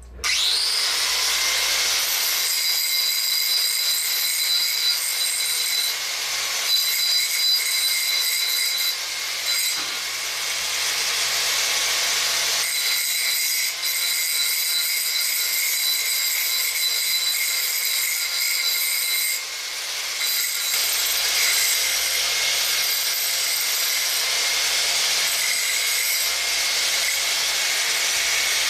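Angle grinder spinning up with a rising whine, then grinding the end of a rusty steel exhaust pipe to take off the sharp corners and rough bits. The steady high whine and grinding hiss dip briefly a few times as the disc comes on and off the metal.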